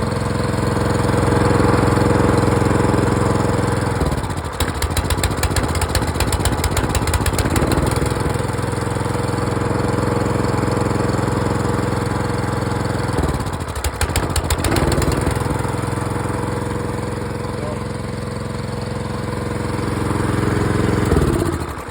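Ryobi pressure washer's small gas engine running. The note is steady, then twice sags in pitch and runs rough and choppy for a few seconds before recovering, and it dies away near the end. This is the rough running that the owner blames on a bad or wrong air filter, or on a worn-out engine.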